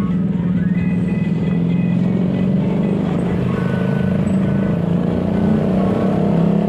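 Steady low drone of a car's engine and road noise, heard from inside the cabin while driving.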